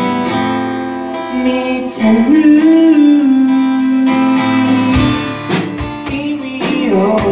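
A live band playing a song: a man singing to a strummed acoustic guitar. His voice swells into a held note about two seconds in, and drum hits come in about halfway through.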